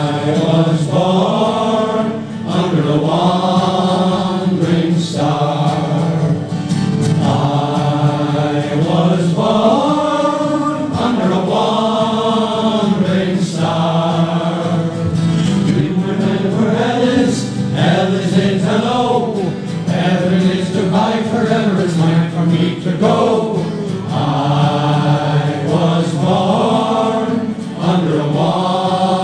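A men's choir singing a slow song together, with long held notes.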